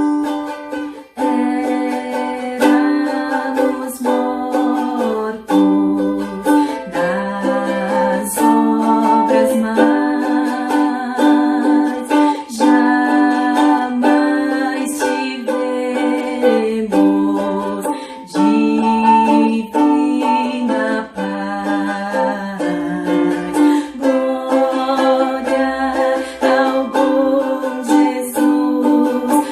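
Ukulele strumming a hymn, a steady run of strokes with the chords changing every second or two.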